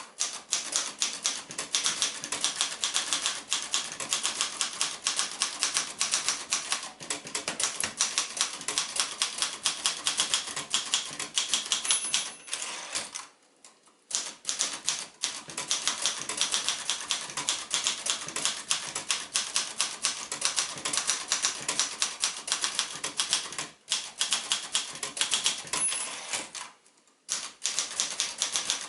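1964 Royal Keystone ultraportable manual typewriter being typed on: a fast, steady clatter of keystrokes, broken by two short pauses.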